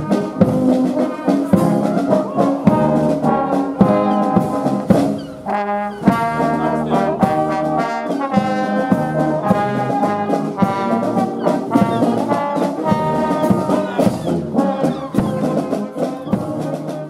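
Marching brass band playing, with held brass chords over regular drum strokes and a short break about five and a half seconds in.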